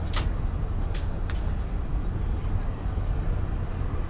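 Steady low rumble of an Airbus A380's passenger-cabin background noise, with three sharp clicks: one just after the start and two close together about a second in.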